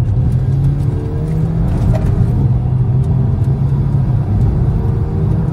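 VW Scirocco's petrol engine pulling under acceleration in second gear, heard from inside the cabin: a steady low engine drone with its pitch climbing slightly as the revs rise. This is a test for spluttering or misfire after a new coil pack was fitted to cylinder three, and the engine pulls without a misfire.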